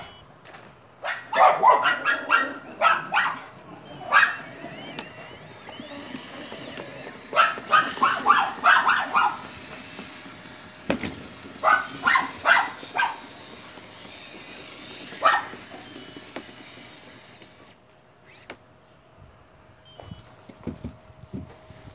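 A dog barking in several bursts of quick barks, over the steady hum of a running RC excavator that cuts off about 18 seconds in.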